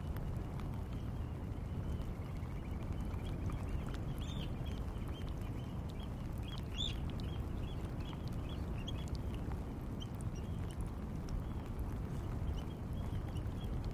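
Wadden Sea shore ambience: a steady low rush with a continual chatter of short, high bird calls, and two louder, higher calls about four and seven seconds in.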